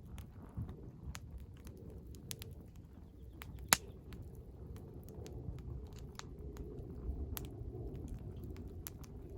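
Wood fire in a fire pit crackling, with irregular snaps and one sharp, much louder pop a little under four seconds in, over a low steady rumble.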